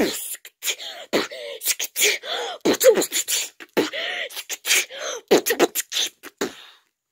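Human beatboxing close to the microphone: quick mouth-made pops and clicks, hissy cymbal-like sounds and short swooping vocal tones in an uneven rhythm, stopping just before the end.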